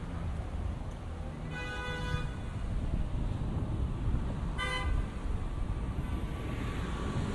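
Street traffic rumbling with a car horn honking twice: a honk of well under a second about one and a half seconds in, and a shorter beep near five seconds.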